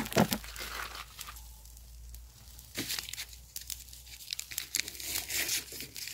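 Irregular crackling and popping from pork belly salt-grilling over a wood fire, with sharp pops scattered through and busiest in the second half.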